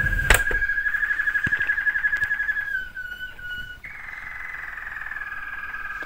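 Kestrel calling in one continuous high, fast-pulsing trill that dips lower for about a second midway, then jumps back up and slowly settles. A single sharp click comes just after the start.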